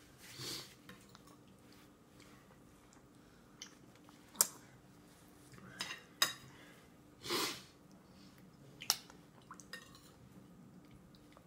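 Small clinks and taps on a stainless steel bowl as a toddler feeds herself by hand: three sharp clinks spaced a couple of seconds apart, with a couple of softer, longer noises between them over a faint steady hum.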